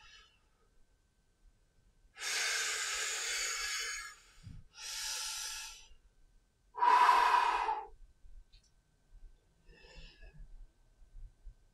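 A man's heavy breathing from the exertion of clubbell swings: a long loud breath about two seconds in, then two shorter ones, the third the loudest, and a faint one near the end.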